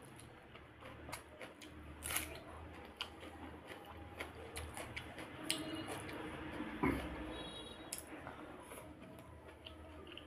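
Close-miked eating of curd-soaked water rice (dahi pakhala) by hand: wet squishy mouthfuls, chewing and small lip-smacking clicks, with one louder bite or slurp about two-thirds of the way through.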